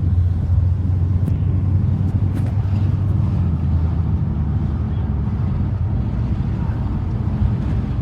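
Car engine and road noise while driving: a steady low rumble.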